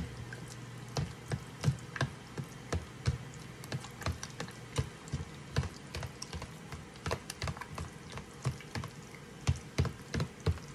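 Irregular light clicks and ticks, a few a second, from a pot of oiled water heating on an electric stove element before it boils.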